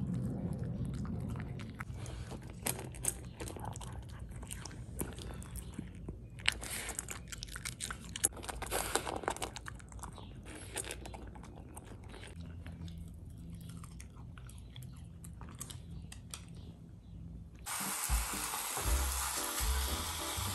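Red miniature poodle crunching and chewing dry kibble and meat from a stainless steel bowl, many short crunches over background music. About three seconds before the end this gives way abruptly to meat sizzling in a grill pan.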